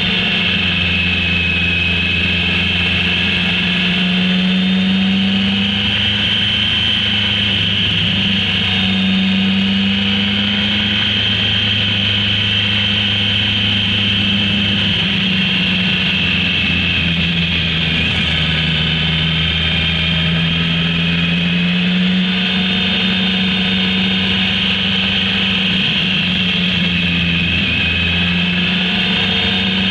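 Motorcycle engine heard from on board while riding, running at moderate revs that rise and fall gently through the bends, with no hard revving.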